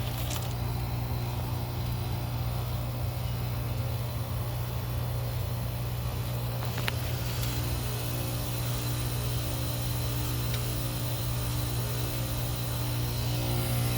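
2020 Tempstar 3-ton heat pump outdoor unit running in defrost mode: a steady, even compressor hum, with a few faint ticks now and then.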